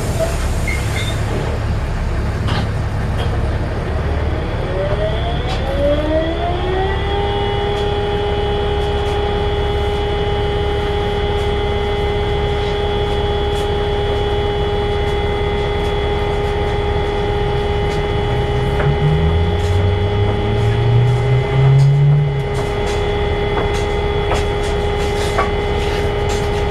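Volvo B7RLE bus's 'hoover' whine, typically put down to its engine cooling fan, heard over steady engine and road noise. The whine climbs in pitch over about three seconds, then holds at a steady note. Near the end the engine note rises twice as the bus pulls.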